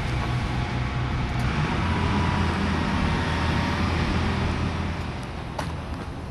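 Steady engine and road noise of a car being driven, heard from inside the car; the rumble eases off slightly near the end.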